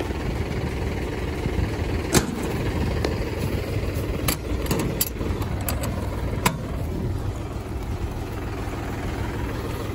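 Mahindra tractor's diesel engine idling steadily, with a few sharp clicks over it.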